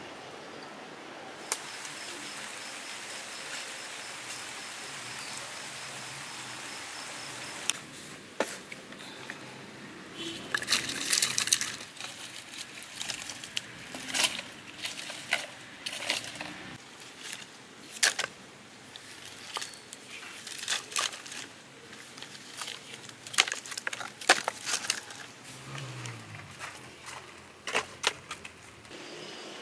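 Dry split firewood sticks knocking and clattering together in quick irregular clatters as they are gathered up and dropped into a plastic crate. For the first quarter there is only a steady outdoor hiss.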